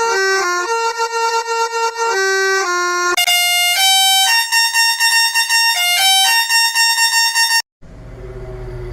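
Musical vehicle horn playing a tune of stepped, held notes, a few notes a second, moving to higher notes about three seconds in. It cuts off suddenly near the end, and a low rumble follows.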